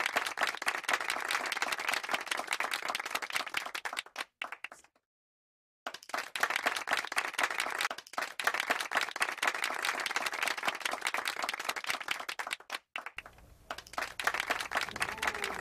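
Audience applause, a dense steady clapping that breaks off abruptly about four and a half seconds in and starts again over a second later.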